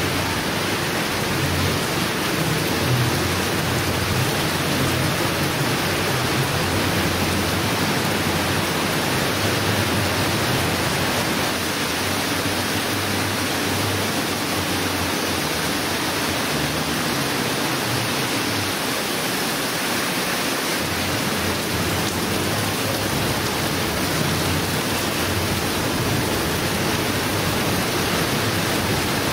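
Heavy rain pouring down steadily in a rainstorm, an even hiss with no let-up.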